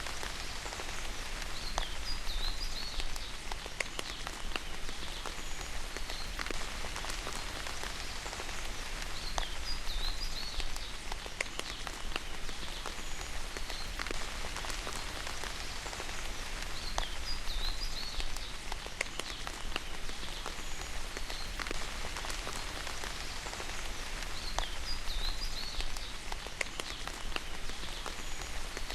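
Steady rain falling, with individual drops clicking sharply against a surface. A short high chirp recurs four times, about every seven to eight seconds.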